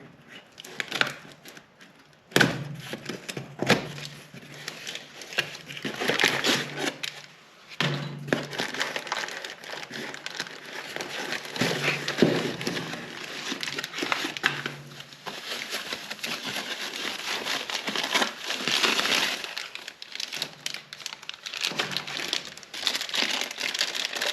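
Rummaging through a parts kit's packaging: plastic bags crinkling and rustling, with irregular clicks and knocks of small parts.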